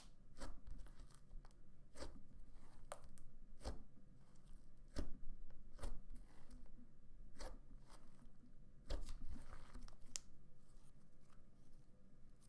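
Thick, cream-cheese-textured slime being squeezed and stretched by hand, giving a string of sharp sticky clicks and pops about once a second, with the loudest pops about five seconds in and around nine seconds in.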